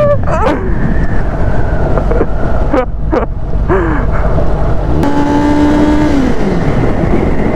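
Kawasaki ZX-10R inline-four engine under way, its pitch rising and falling as the throttle is opened and closed. It holds a steady note for about a second near the end, then drops off. Under it runs a steady rush of wind and road noise.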